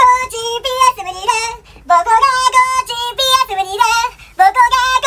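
High-pitched singing voice, a tune sung in quick, short notes, with brief breaks about a second and a half in and again about four seconds in.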